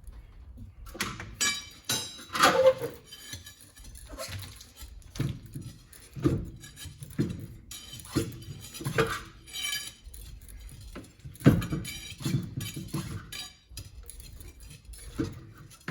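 Irregular metal clanks and clinks of a heavy steel truck wheel being hung and worked onto the hub studs.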